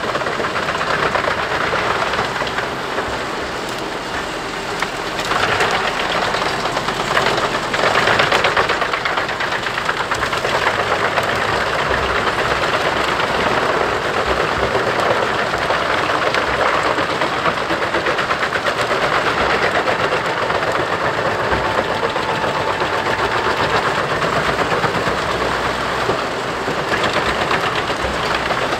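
Jenz HEM 593 Cobra truck-mounted drum chipper running under load as it chips branches and tree tops. A dense, continuous crackling and rattling sits over the engine, with louder surges about five and eight seconds in.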